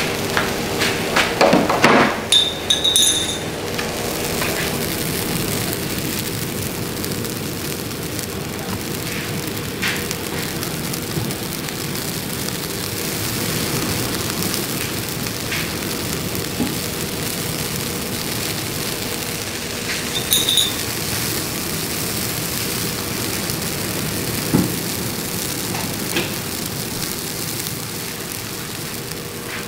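Spiced sauce simmering and sizzling in an aluminium wok on a gas burner, a steady bubbling hiss. Short ringing clinks come about three seconds in and again about twenty seconds in, after a few clicks near the start.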